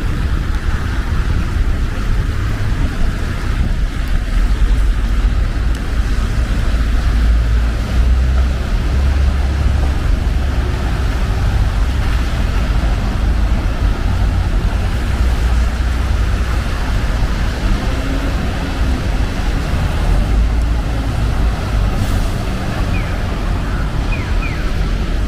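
Rainy city street ambience: a constant low rumble of traffic under an even hiss of rain on wet pavement, with a few short high chirps near the end.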